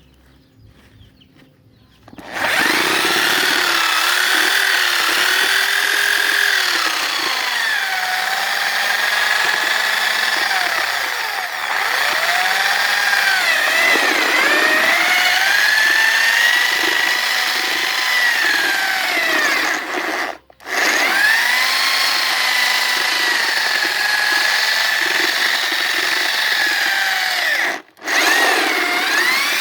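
Electric drill motor driving a homemade banana grinder, starting about two seconds in and running with a whine that sags and recovers in pitch as it takes load. It cuts out briefly twice near the end.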